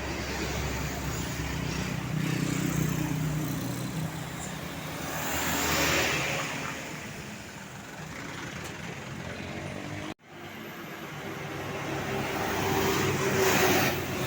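Road traffic passing, tour buses among it: a steady engine hum, then vehicles swelling up and fading away as they go by, about six seconds in and again near the end. The sound cuts out abruptly for a moment about ten seconds in.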